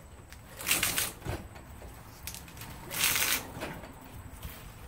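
Copper winding wire rasping as it is pulled out of an alternator stator's slots, in two short scraping pulls, about a second in and about three seconds in, with lighter rustling of the wire between.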